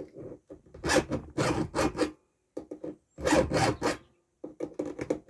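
Chainsaw file rasping across a steel chain cutter tooth as it is sharpened by hand, in two runs of short quick strokes about a second in and about three seconds in, with lighter strokes near the end.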